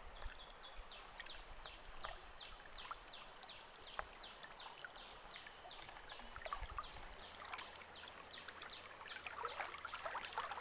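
Faint rush of flowing stream water, over which a high chirping call repeats about three times a second, each short note falling in pitch. A few sharp snaps of dry bamboo litter are heard along the way.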